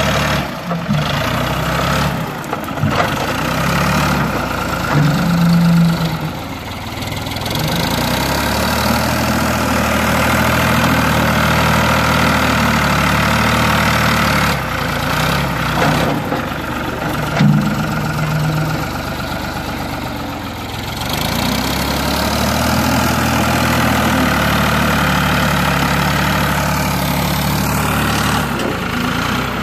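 Ford 445D skip loader's diesel engine running steadily, its pitch rising briefly a couple of times as it works the burn pile.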